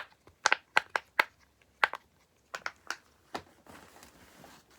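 Sharp crinkling clicks of plastic being handled, about eight irregular ones over the first three seconds, then a soft rustle near the end.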